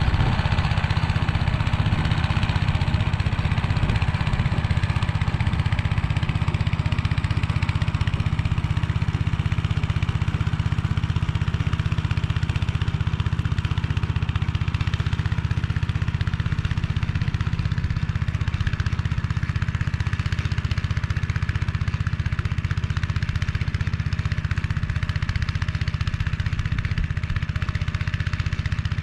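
Motor Sich walk-behind tractor's engine running steadily under load, driving a rotary tiller through the soil.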